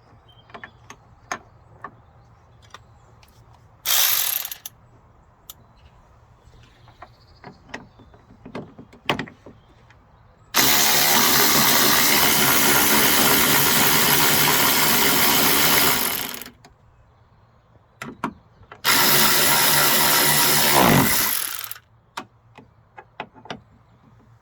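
A cordless power driver runs in bursts while driving in the bolts of a tailgate strut bracket: a short burst, a long run of about six seconds, then a run of about three seconds that winds down in pitch as it stops. Light clicks and clinks of tools and metal parts fall between the bursts.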